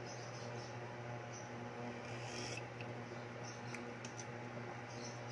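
Steady low hum of an induction cooker under a simmering pot of soup, with a few light clicks of a ladle against the stainless steel pot about four seconds in as the soup is stirred.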